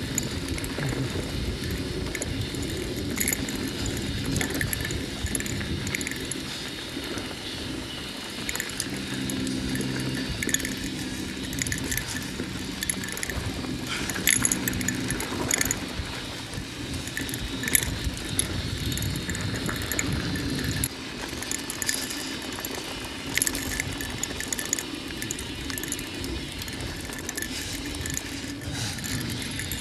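Mountain bike descending dirt singletrack: tyres rolling and crunching over dirt and rocks, with many short rattles and clicks from the bike over bumps. A low steady hum runs through the middle stretch, from about eight to twenty-one seconds in.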